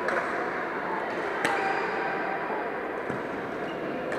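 Badminton rackets striking shuttlecocks: sharp, crisp hits about every second and a half, the loudest about a second and a half in, with a fainter one near three seconds. The hits ring in a large sports hall over a steady background din of play.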